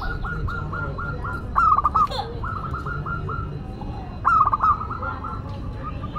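Zebra dove (perkutut) cooing in repeated phrases. Each phrase is a quick, loud cluster of notes that trails into a run of short, evenly spaced coos, heard three times.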